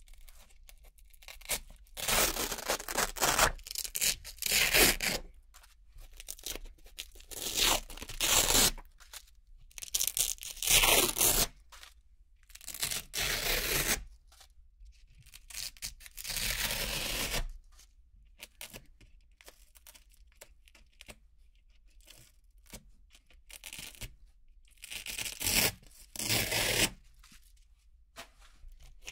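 Hook-and-loop (Velcro) circles being peeled off a Velcro-covered board: repeated short crisp rips, a second or so each, with pauses between.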